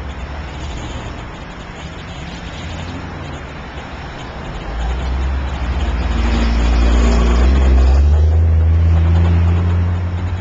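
Road traffic going by. About halfway through, a vehicle's engine swells loudly as it passes close, then fades near the end.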